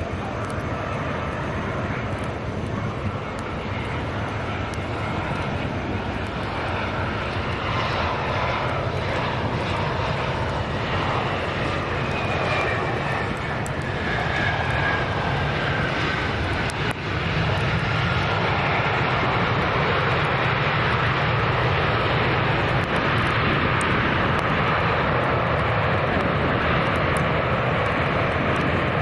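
Jet airliner engines running as the plane passes, with a whine that falls in pitch around the middle; the noise steps up a little past halfway and stays loud.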